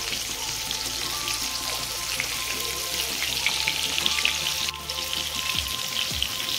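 Batter-coated chicken pieces deep-frying in hot oil in a kadai, a steady crackling sizzle.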